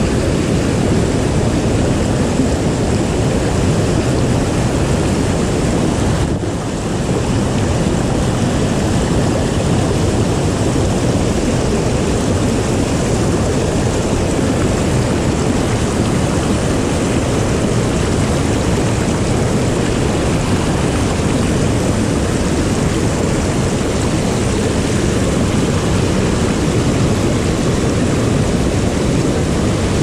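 Shallow stream rushing and splashing over rocks, a loud, steady noise of running water.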